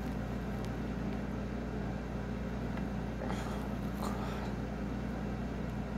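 A steady low hum, as from a running motor or appliance, with two brief faint noises a little past the middle.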